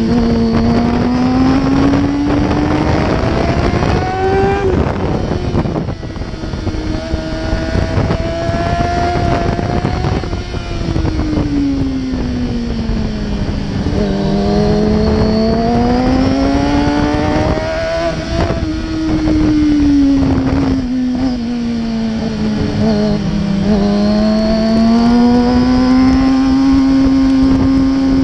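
Kawasaki sport bike engine heard from onboard, its pitch rising as it accelerates and falling as the throttle closes through a run of bends, with a quick drop about four seconds in. A steady rush of wind and road noise runs underneath.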